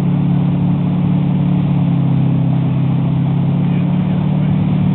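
Motorboat engine running steadily at towing speed, a constant low hum, over the rush of the wake water.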